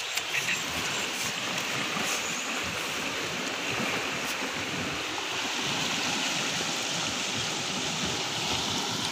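A forest stream in flash flood: muddy water rushing steadily over flooded ground and through a small concrete culvert.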